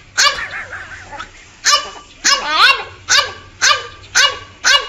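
French bulldog puppy barking in a string of short, high yelps, about seven of them, several rising in pitch.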